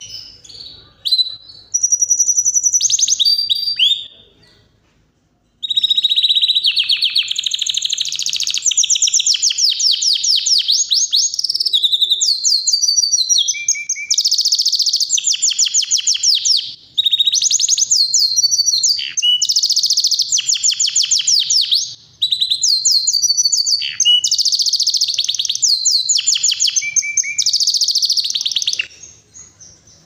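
Yorkshire canary singing a powerful song of fast trills and rolling phrases. It pauses for a second or so about four seconds in, then sings almost without a break until near the end.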